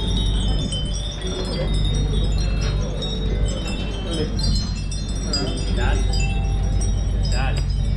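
Many small chimes tinkling irregularly, like a cluster of wind chimes, over a steady low background hum.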